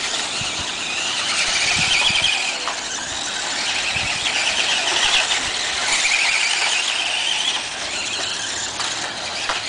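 Radio-controlled buggies' motors and gears whining high-pitched, swelling three times for a second or two as they are throttled around a dirt track.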